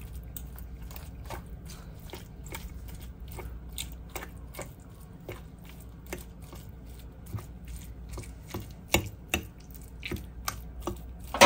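Irregular light clicks and taps of a utensil against a plate as cooked salmon is pulled apart and shredded, with a few louder knocks about nine seconds in and near the end.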